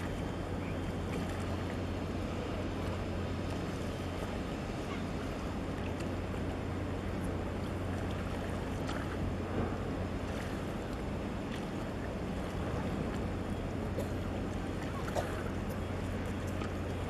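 Steady harbour ambience across the water: a low, constant engine hum from the large container ship being moved between berths, over a wash of water and wind noise, with a couple of faint knocks.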